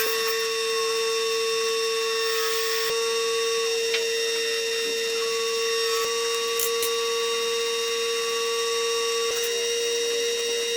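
Power tool's electric motor running with a steady high-pitched whine.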